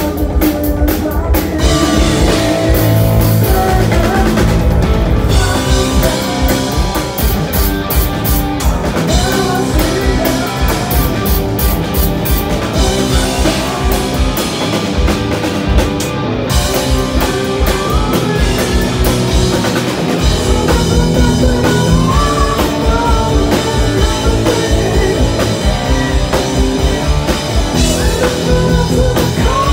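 Live rock band playing loud: a distorted Telecaster-style electric guitar over a drum kit, with a male singer's vocals at times.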